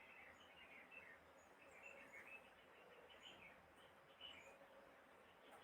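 Near silence: faint room tone with scattered faint bird chirps in the background.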